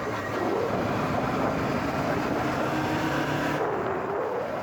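Motorcycle running on the road: a steady engine note under wind and road noise. The upper hiss thins out abruptly about three and a half seconds in.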